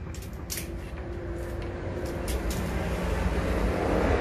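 A low motor-vehicle rumble that grows louder toward the end, as of a vehicle passing close by, with a few light clicks and taps over it.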